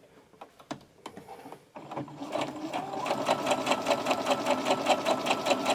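Brother sewing machine starting up about two seconds in and stitching through two layers of cotton, with rapid, even needle strokes; a steady motor whine joins about a second later. It runs smoothly with no thumping on its newly replaced bobbin case. A few light clicks come before it starts.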